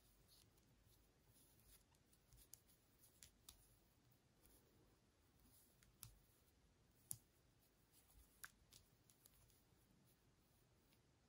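Near silence with faint, irregular small clicks and ticks from a crochet hook working yarn, the loudest about seven seconds in.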